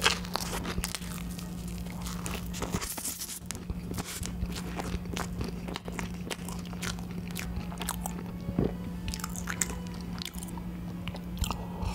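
Close-miked chewing and mouth sounds of a person eating: many short wet clicks, lip smacks and crisp bites throughout, over a steady low hum.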